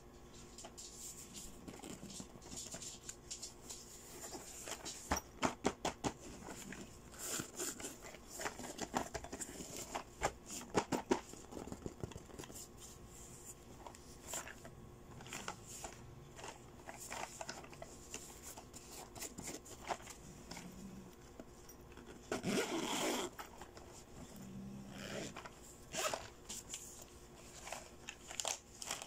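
Zipper on a shiny blue vinyl cosmetic bag being unzipped, among many small taps, clicks and scrapes of fingers handling the bag.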